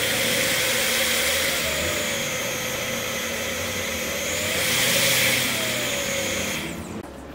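The brushed motor of a 710-watt bench drill press runs with no load, a steady whine and hum. It is briefly louder about five seconds in and stops near the end.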